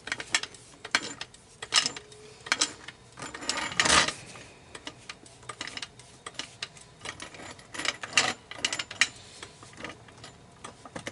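Metal clicks and clanks from a floor jack being positioned and worked under a car, coming irregularly with the loudest clank about four seconds in.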